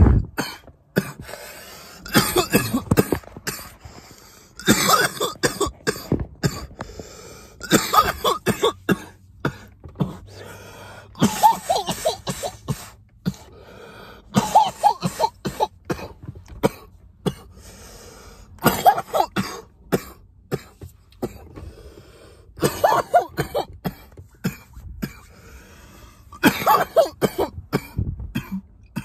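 A man coughing hard in repeated fits after a deep hit from a vape pen, a cluster of hacking coughs every few seconds.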